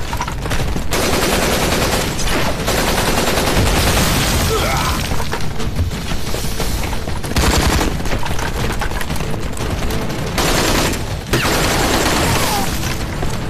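Dense battle gunfire: rapid automatic weapons fire, burst after burst with little let-up, mixed with single shots.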